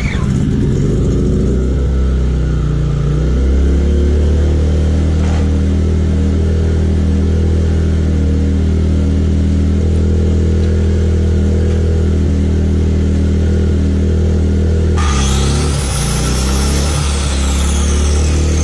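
Rainier R2200i inverter generator's gas engine running just after a pull-start with the choke out, picking up speed over the first few seconds and then holding a steady run. About fifteen seconds in, an electric saw powered from it starts up with a whining, shifting pitch, and the generator's note changes as it takes the load.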